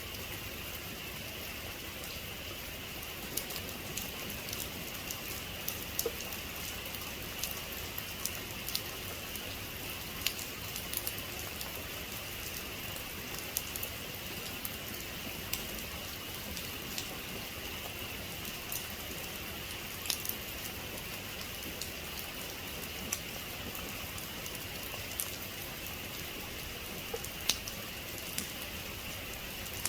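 Steady rainfall, with many scattered individual drops tapping sharply close by.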